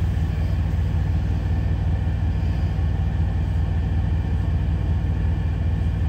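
Steady low rumble of a semi-truck's idling diesel engine, heard from inside the sleeper cab.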